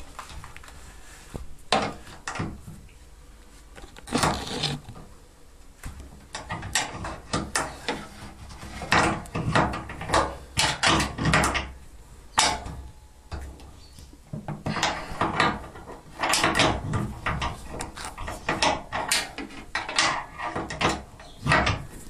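Wrench tightening the lock nut on a washing machine's adjustable leveling foot: irregular clicks and scrapes of metal as the wrench is fitted and turned in short strokes, locking the foot at its set height.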